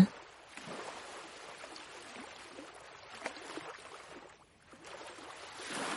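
Soft recorded ocean waves washing, an even hiss that drops away briefly about four and a half seconds in and swells again near the end.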